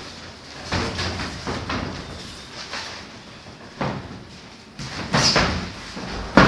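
Boxers sparring in a ring: irregular thuds and slaps of gloved punches landing and feet moving on the ring canvas, the loudest thud near the end.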